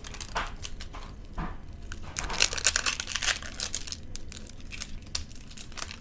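Thin plastic wrapping on a Mini Brands capsule being crumpled and torn off by hand, a run of crackling crinkles that grows densest about two seconds in and eases after three and a half.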